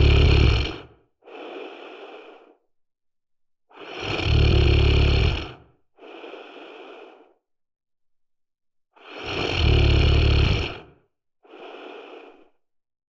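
A sleeping person snoring: a loud, low snore on each breath, followed by a softer, shorter breath, repeating about every five seconds. The first snore is already under way at the start, and two more follow.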